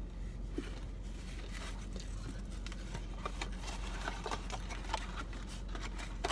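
Eating sounds: scattered soft clicks, taps and light rustles of takeout food and its container being handled, with chewing, over a steady low hum.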